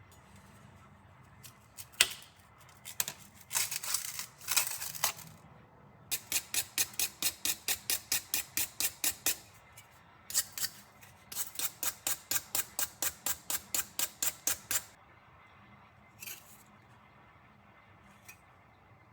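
Rust being scrubbed off a nakiri kitchen knife blade: a few separate scrapes, then two long runs of quick, even rubbing strokes, about four a second.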